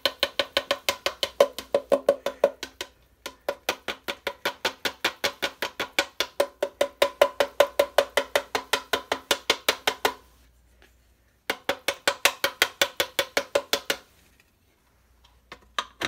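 Rapid, even clacking of beads being crunched up by a vacuum, about seven sharp clicks a second, in three runs that stop and start again with short pauses between.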